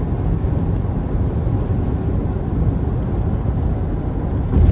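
A car driving along a highway: a steady low road and engine rumble, with a brief knock near the end.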